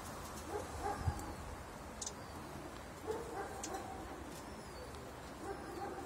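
Faint pigeons cooing, soft low calls every two to three seconds, with a few short high ticks in between.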